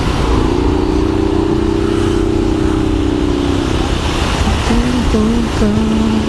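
Steady wind and motorcycle road rumble heard from inside a helmet. Over it a pitched tone like a held musical note lasts about three and a half seconds, and a few short notes follow near the end.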